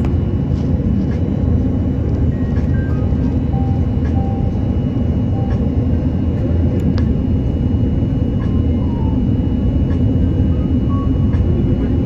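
Steady, loud cabin noise of an Airbus A330-300 in descent, heard at a window seat beside the engine: an even rumble of jet engine and rushing air, with no changes.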